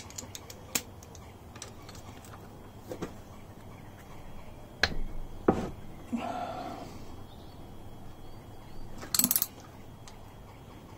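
Hand tools working on the crankcase bolts of a motorcycle engine: scattered sharp metallic clicks and clinks, a short scraping sound about six seconds in, and a quick rattling burst about nine seconds in.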